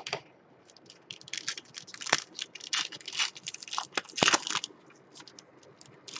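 A foil trading-card pack being torn open and crinkled by hand: a run of crackling, rustling tears, with two sharper snaps about two and four seconds in.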